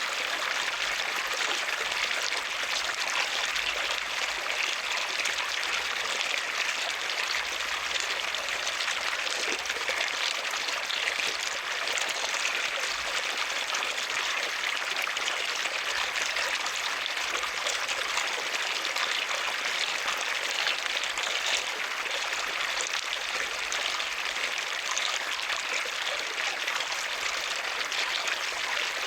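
Water flowing and splashing steadily, a continuous, even rush of trickling water.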